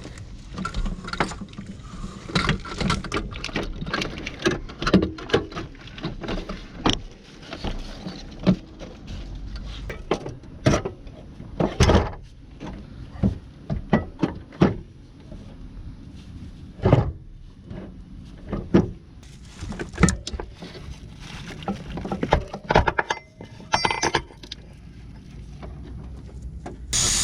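Irregular clinks and knocks of hand tools and metal parts being handled, a few strikes a second with pauses between, loudest around the middle.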